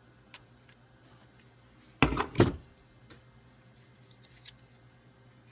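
Small hand-worked parts of a plastic console latch being handled: a faint click near the start, then a brief cluster of sharp clicks and scrapes about two seconds in, with two loud snaps close together.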